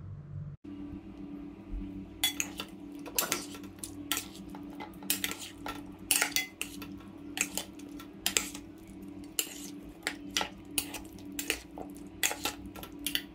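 Metal spoon clinking and scraping against a stainless steel bowl while tossing boiled chicken pieces in marinade. The clinks are irregular, start about two seconds in and come several a second at times, over a steady low hum.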